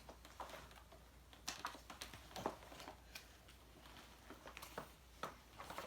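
Faint, irregular clicks and taps of eating a meal of curry rice, with the loudest tap about two and a half seconds in.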